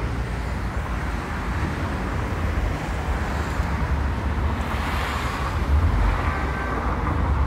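Steady city street traffic noise, a low rumble with a hiss above it, swelling briefly about five seconds in.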